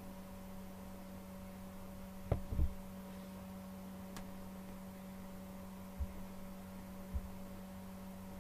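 Steady electrical hum over a faint, even hiss of oil frying, with a few soft low thumps: two close together about two and a half seconds in, then one around six seconds and one around seven.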